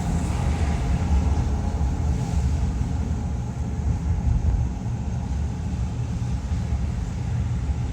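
Steady low rumble of a car driving, its engine and tyres on the road with no sudden events.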